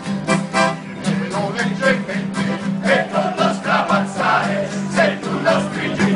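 A group of men singing a traditional Tuscan May song (canto del Maggio) in chorus, with rhythmically strummed acoustic guitars and an accordion holding a steady low tone underneath.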